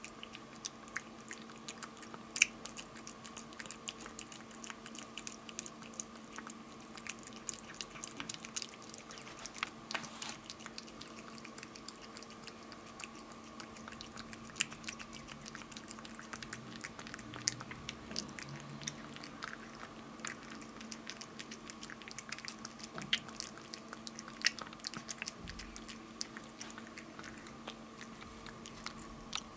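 A tabby-and-white cat chewing wet cat food: a run of quick, irregular wet clicks and smacks. A faint steady hum sits underneath.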